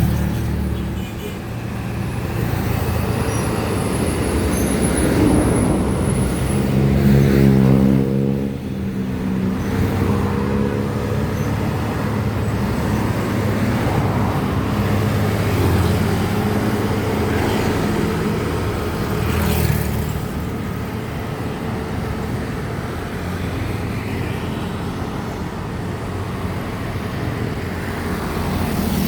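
Road traffic with heavy trucks' engines pulling up a climb. About seven seconds in, one engine's note swells to the loudest point and then falls away as it passes.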